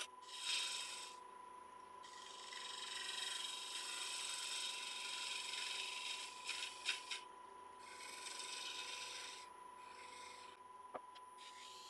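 Spindle gouge scraping the surface of a spinning piece of wet cherry on a wood lathe, in several passes of a few seconds each with short pauses between, over a steady high whine.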